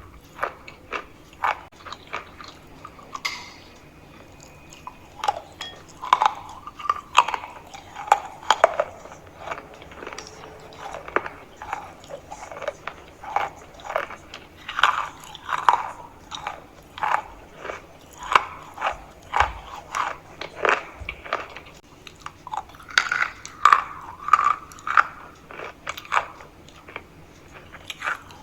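A person biting and chewing hard chalk close to the microphone: a string of sharp, irregular crunches, a few each second.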